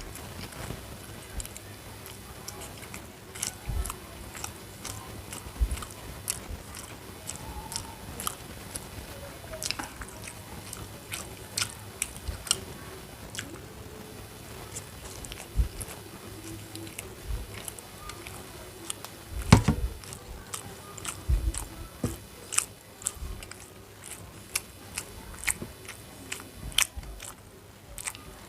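A person chewing and biting food close to the microphone, with frequent short wet mouth clicks at an irregular pace. There is one louder low thump about two-thirds of the way through.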